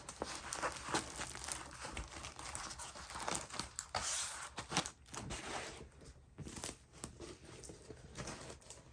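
Plastic packaging crinkling and rustling as it is handled, in irregular crackles that are busiest over the first five seconds and thin out after.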